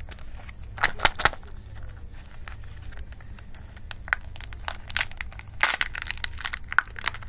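Plastic candy-egg packaging crackling as it is handled and pried apart, then its foil lid crinkling as it is peeled back off the cup of biscuit balls. Sharp crackles come about a second in, with a denser run of crinkling about five to six seconds in.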